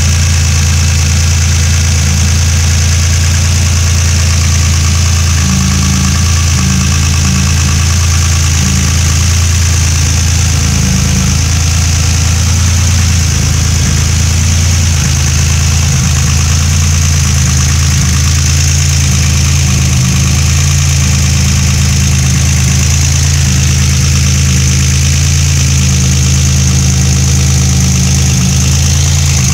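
Turbocharged engine idling steadily after a cold start, with an even high hiss over the low running note.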